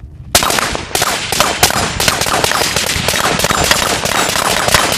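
Two AR-style rifles fired rapidly together, a fast string of overlapping sharp shots starting about a third of a second in.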